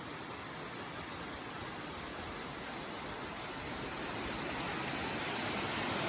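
Steady rushing of water from a small waterfall and stream running over rock, growing gradually louder.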